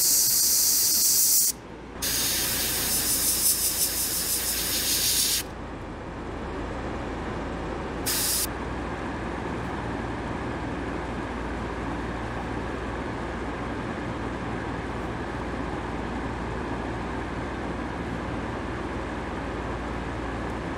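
Airbrush spraying paint in hissing bursts: one long spray, a short pause, a second spray ending about five seconds in, and a brief puff near eight seconds. Under it, a steady low motor hum starts about a second and a half in and runs on.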